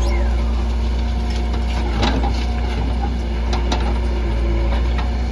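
Diesel engine of a JCB 3DX backhoe loader running steadily, with a few sharp knocks about two seconds in and again a little later.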